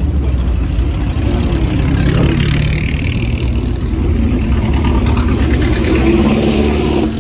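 Engines of classic endurance racing cars running at low speed as they roll past in a line. About two seconds in, a high-pitched engine note falls in pitch as one car goes by.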